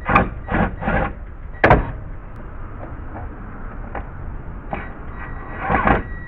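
Drill backing a long screw out of wooden sundeck framing in short bursts, with the screw rubbing and creaking in the wood. There is a sharp click about a second and a half in and another burst near the end.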